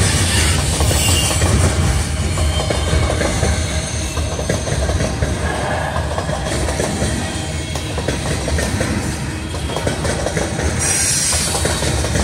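Freight train of covered hopper cars rolling past, the steel wheels clicking steadily over the rail joints. A faint high wheel squeal rises about a second in and again near the end.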